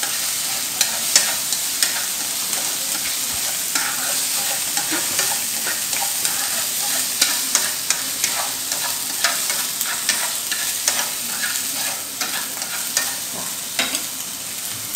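Land-snail meat stir-frying in a nonstick frying pan: a steady sizzle, with frequent sharp clicks of chopsticks knocking against the pan as the snails are stirred.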